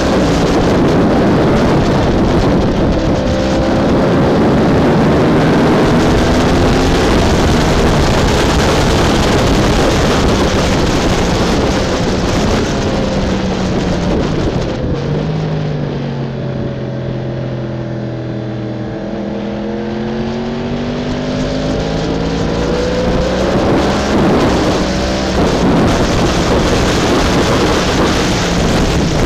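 BMW S1000RR inline-four sport bike engine running hard with heavy wind noise, its revs climbing and stepping through the gears. About halfway through the revs fall off, then build again.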